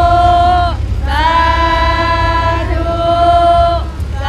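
Choir-like singing: long held notes, each sliding up into pitch at its start, with a short break under a second in and another near the end. A steady low hum runs underneath.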